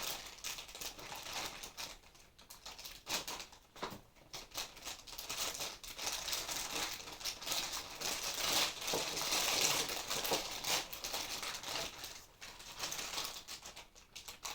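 Plastic packaging crinkling and rustling as it is handled, with scattered small clicks, most busy in the middle of the stretch.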